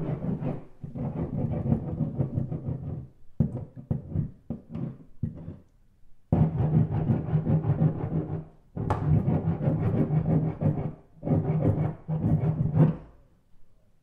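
Heavy scraping against a wall, heard from the interior side: low, rough scrapes. A run of short, quick strokes comes a few seconds in, then a pause, then several long scrapes that stop shortly before the end.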